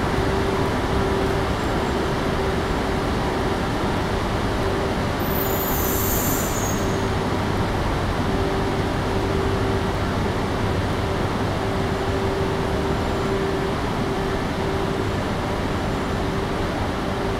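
Steady rumbling hum of a shinkansen station with a train standing at the platform, with a faint pulsing tone and a brief high hiss about six seconds in.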